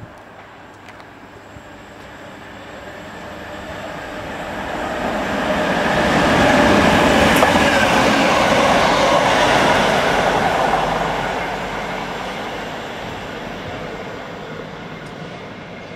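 Class 66 diesel-electric locomotive, its two-stroke V12 engine running, passes at speed hauling Mk3 carriages. The sound builds over several seconds, is loudest as the locomotive goes by, then fades as the train draws away.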